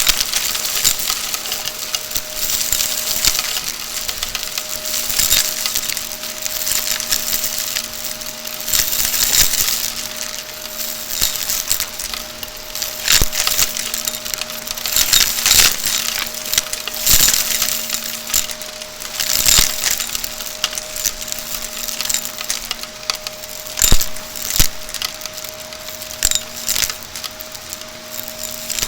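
Shark vacuum cleaner running with a steady hum while crunchy debris is sucked up, rattling and crackling through it in a dense stream of clicks with sharper snaps every few seconds.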